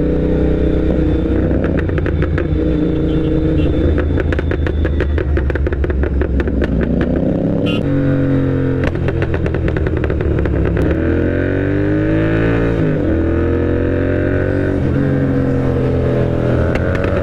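Royal Enfield Continental GT 650's parallel-twin engine through an aftermarket Moto Torque exhaust, riding and accelerating. The engine note climbs and then drops sharply several times as it shifts up. A run of sharp exhaust crackles fills the first half.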